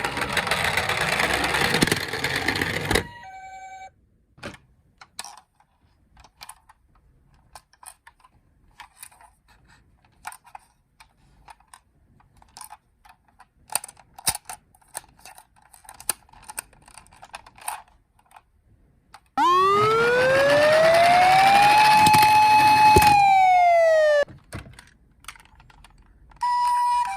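A loud rushing noise for about three seconds, then scattered faint clicks and taps. A siren wail follows that rises, holds for about a second and falls away; near the end a two-tone hi-lo siren of the Japanese ambulance kind starts up.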